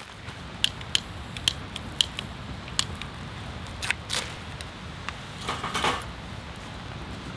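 Firewood burning in a portable metal fire box, crackling with sharp irregular pops over a low steady rumble, and a quicker run of crackles a little before six seconds in.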